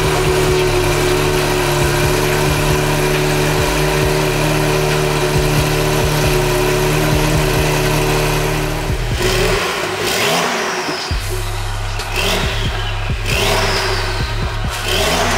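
Porsche 992 Carrera S twin-turbo flat-six idling steadily through a Fi valvetronic exhaust with catless downpipes, then blipped three times, the pitch rising and falling with each rev in the last six seconds.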